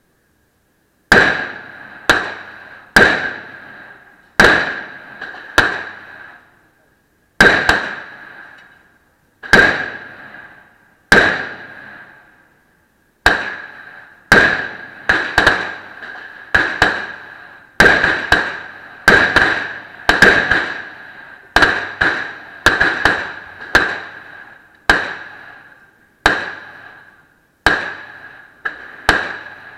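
Glock 42 .380 pistol firing, about two dozen shots, each a sharp crack with a decaying echo. The shots come a second or two apart at first, then quicken to a rapid string from about halfway through.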